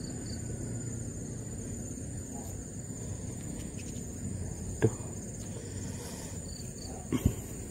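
Insects chirring in a steady high-pitched drone, over a faint low background hum. Two brief dull knocks from handling come about five seconds in and again near the end.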